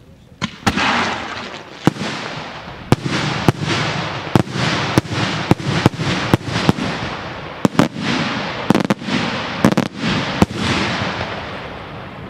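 Senatore Fireworks daylight salute shells bursting overhead in a rapid, irregular string of about two dozen sharp bangs, some in quick pairs and triplets, each trailing an echoing rumble. The bangs stop about two seconds before the end and the rumble fades.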